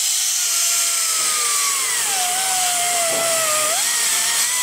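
Air-powered grinder with an abrasive disc running against the aluminium deck face of a BMW M50 cylinder head: a high whine over loud air hiss, like a dentist's drill. About two seconds in the pitch drops as the disc is pressed onto the metal, and it climbs again near the end. The disc is scrubbing carbon and residue off the head face.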